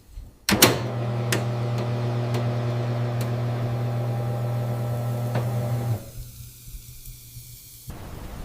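Microwave oven running with a steady electrical hum, starting with a click about half a second in and cutting off abruptly about six seconds in.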